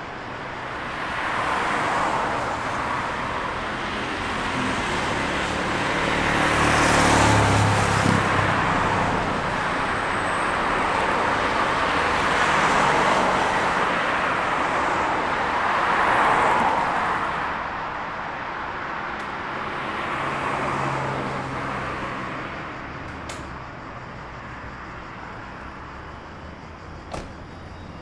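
Road traffic with vehicles passing one after another, the tyre and engine noise swelling and fading about five or six times. A deeper engine hum comes through about seven seconds in, and a short click is heard near the end.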